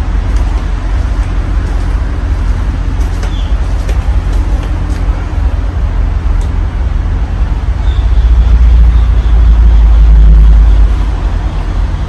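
52-inch Casablanca Four Seasons III ceiling fan running, heard as a steady low rumble of moving air. The rumble swells louder about eight seconds in for roughly three seconds.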